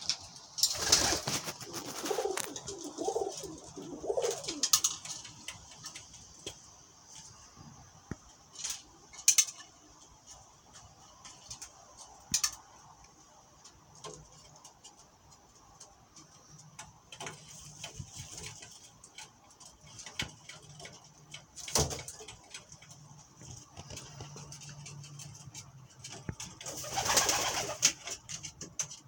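Domestic pigeons cooing: a few low, wavering coos in the first few seconds, then scattered clicks and light rustling, with a louder burst of rustling near the end.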